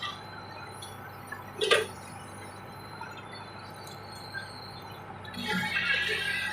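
Case 580 backhoe at work: a faint steady low engine hum, a sharp metallic clink a little under two seconds in, and a high squeal near the end.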